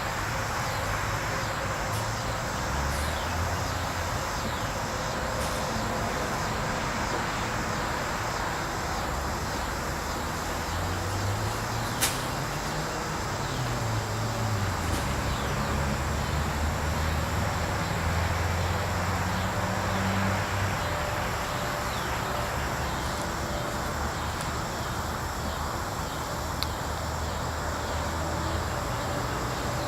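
Outdoor ambience of insects chirping steadily over a low engine hum that rises and falls in pitch, with a single sharp click about twelve seconds in.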